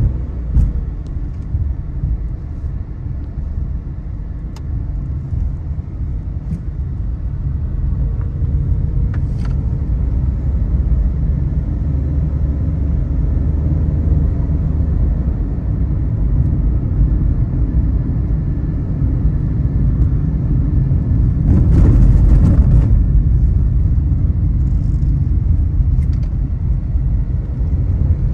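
Car driving on a road: a steady low rumble of engine and tyre noise, with a short louder rush of noise about two-thirds of the way through.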